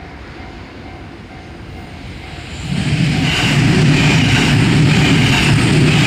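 Japanese level-crossing warning bell ringing its steady 'kan-kan' about twice a second. About two and a half seconds in an electric commuter train arrives and runs past close by, loud and steady, drowning out the bell.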